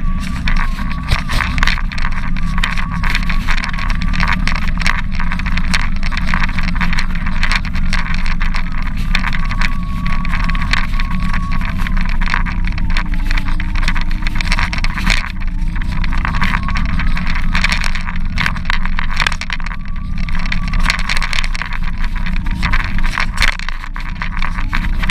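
Steady rolling rumble and rattle of small hard wheels running over paving, dense with clicks. A faint whine wavers slightly in pitch over it.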